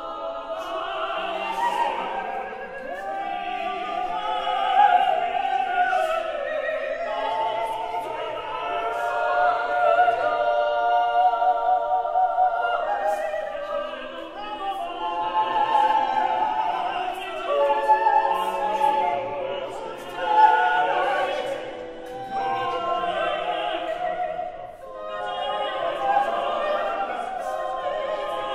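Unaccompanied mixed SATB chorus singing a cappella in a contemporary style: many overlapping held vocal lines that swell and fade, with brief dips in loudness twice.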